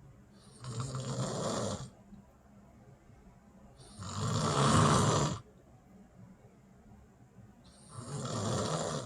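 A person snoring: three long rasping snores at an even pace, about three and a half seconds apart, the middle one the loudest.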